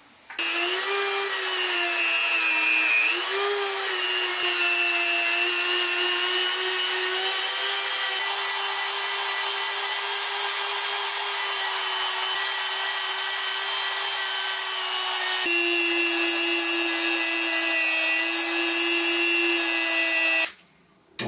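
Dremel rotary tool spinning an abrasive wheel against the metal of antique hair tongs, a steady high whine. The pitch dips briefly about three seconds in, and the tool stops just before the end.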